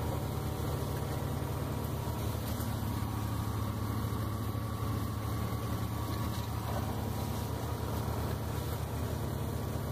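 A small engine running steadily at idle, a low, even hum with a fine regular pulse, typical of the generator or hydraulic power unit that drives a butt fusion machine.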